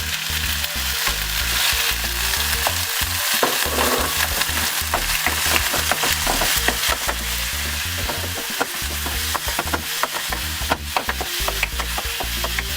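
Garlic and tomatoes sizzling in hot oil in a frying pan, while a utensil stirs them, with many quick taps and scrapes against the pan.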